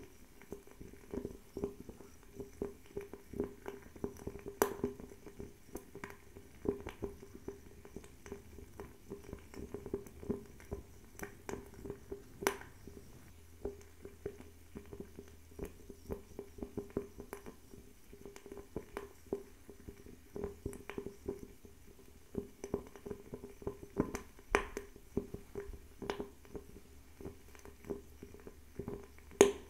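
Bio-ethanol table fireplace burning with an irregular crackle: sharp pops and snaps, several a second, over a faint steady flame sound. A few pops stand out louder, the loudest near the end.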